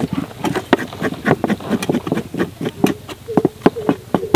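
Small knife blades scraping hair off goat legs in quick, irregular short strokes. A steady hum joins about three seconds in.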